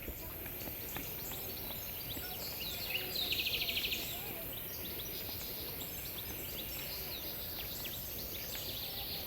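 Outdoor ambience with scattered high chirps and ticks, and a fast high trill about three seconds in lasting about a second.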